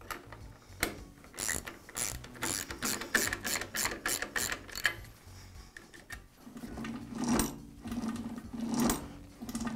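Hand ratcheting driver clicking in quick runs as it turns the nut on a drill press's quill return-spring housing to set the spring tension. After about six seconds the clicks give way to a rougher mechanical clatter.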